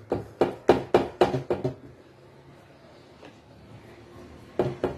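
Hands patting and pressing fekkas dough logs on a thin metal baking tray: a quick run of about nine light knocks within the first second and a half.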